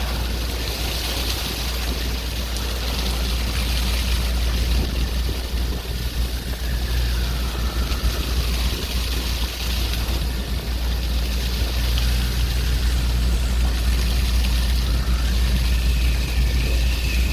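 A steady low engine drone runs under a wash of waves that swells and fades. A few faint whistles rise and fall over it.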